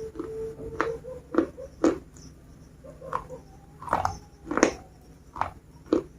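Biscuits being bitten and chewed close to the microphone: about eight sharp, separate crunches at an uneven pace.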